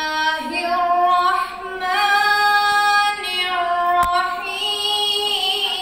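Quran recitation (tilawat) chanted in a high voice, long drawn-out melodic notes that glide from one pitch to the next. A single sharp click sounds about four seconds in.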